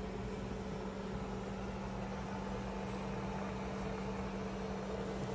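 Induction cooktop running under a steamer pot: a steady low electrical hum with a second, higher tone and an even hiss.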